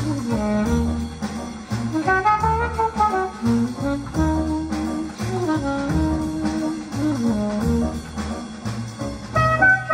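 Jazz played back over Talon Audio Firebird hi-fi loudspeakers: a saxophone melody moving over bass notes.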